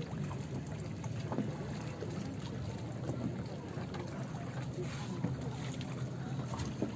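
A steady low motor hum, with scattered light clicks over it.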